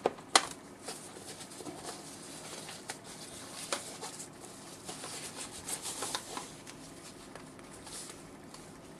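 Cardboard box and wrapping handled as a video intercom monitor is lifted out: soft rustling and scraping with a few sharp knocks, the loudest just after the start.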